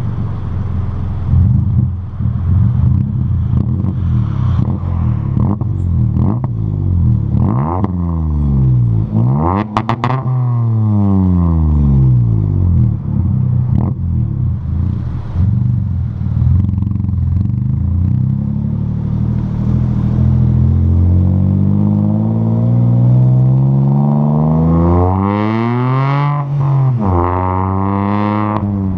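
Renault Kwid's three-cylinder engine heard through a full aftermarket exhaust, its revs climbing and falling. The revs rise to a peak about ten seconds in and drop away, hold steadier for a while, then climb for several seconds near the end, with a sudden drop and a fresh climb.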